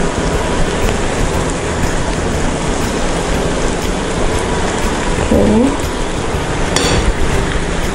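Tongkol (mackerel tuna) pieces in green-chilli sauce sizzling steadily in a nonstick frying pan, with a brief clack near the end.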